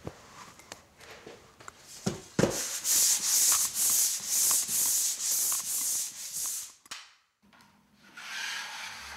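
Sandpaper sanding dried joint compound on a drywall corner bead to knock down rough spots and ridges: quick back-and-forth strokes, about two or three a second, starting about three seconds in after a few light knocks.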